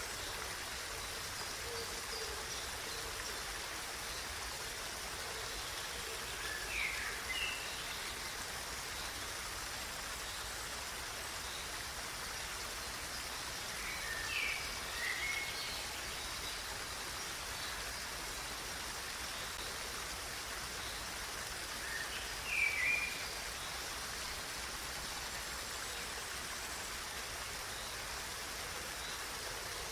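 Steady rush of running water, with a bird calling briefly three times, roughly every seven to eight seconds.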